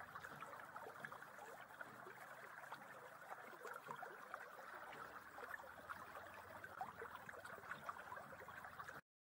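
Faint babbling and trickling of a flowing stream, a steady run of small splashes that cuts off abruptly near the end.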